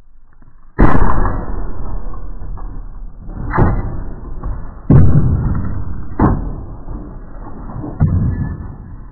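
Sledgehammer blows smashing an upright piano: five heavy hits, the first and the fourth the loudest, each leaving a long ringing decay from the piano's strings and wooden case. The footage is slowed down, which deepens and stretches each crash.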